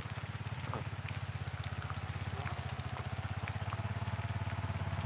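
Motorcycle engine running at steady low revs with a fast even pulse, carrying two riders on a dirt forest track; the rider says the bike feels heavy. Faint scattered ticks sound over it.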